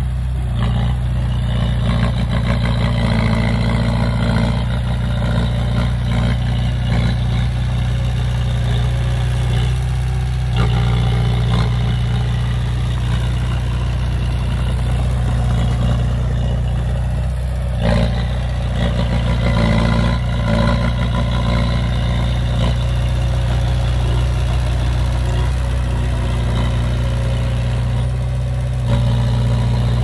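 Diesel engine of heavy earthmoving machinery running steadily under work, with mechanical clatter and a single sharp knock a little past halfway.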